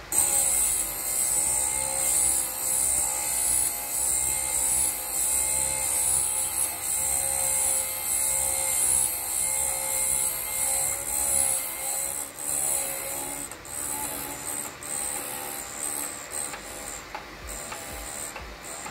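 FABTEC MR-13A drill bit sharpener grinding the point of a twist drill as the bit in its collet chuck is turned against the wheel: a steady rasping grind that starts suddenly and wavers with the turning. It dies down over the last few seconds, the sign that this side of the point is ground to the set angle.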